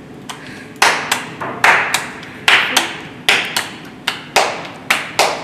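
Hands patting a piece of yellow corn masa flat between the palms to shape a tortilla. A run of sharp slaps starts about a second in and goes on at about two or three a second, often in pairs.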